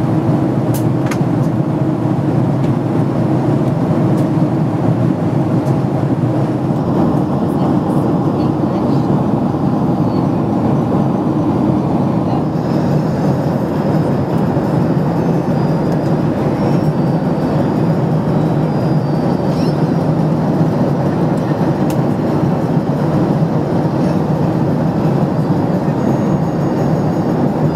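Steady cabin noise of a Boeing 767-300ER in flight: the even rush of the engines and the airflow past the fuselage, heard from inside the passenger cabin.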